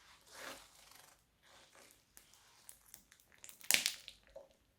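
Crunchy slime made with plastic piping bags being squeezed and handled, giving irregular crinkling and crackling, with a louder crackle about three-quarters of the way through.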